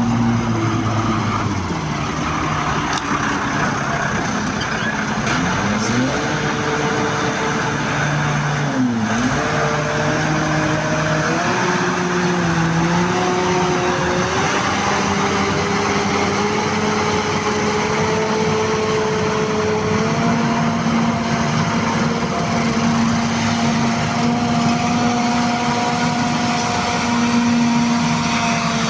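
A motor vehicle's engine running with road noise. Its pitch dips and climbs between about six and nine seconds in, then rises in small steps and holds steady.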